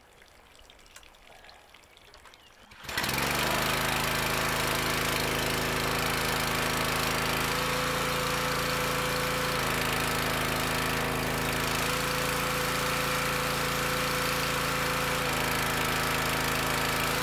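A gas pressure washer's small engine starts about three seconds in and then runs steadily under the hiss of the water jet. Its note shifts a few times as the wand trigger is pulled and released, the engine bogging and struggling when the trigger is let off, which the owner takes for a sticking unloader valve that is not relieving pressure.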